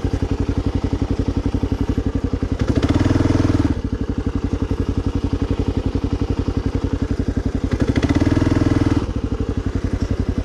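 Kawasaki KLR650's single-cylinder four-stroke engine running at low revs with an even thumping beat, opened up briefly twice, about three seconds in and again about eight seconds in.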